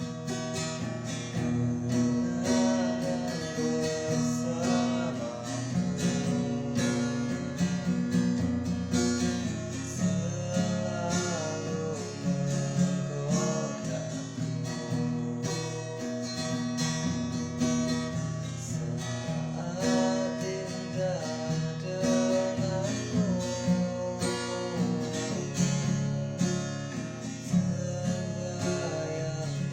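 Music led by acoustic guitar, plucked and strummed over a steady bass line, with a melody line weaving above it.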